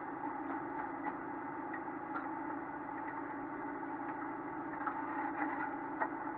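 Steady hum in a stationary race car's cabin, with a few light clicks and knocks scattered through it.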